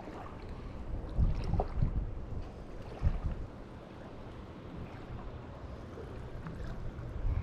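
Wind buffeting the microphone in low rumbling gusts, with a few faint clicks and knocks from hands working a spinning reel and its line.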